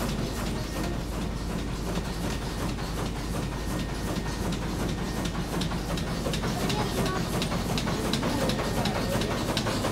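Steamship's reciprocating steam engine running, its moving parts clattering in an even rhythm over a steady low hum.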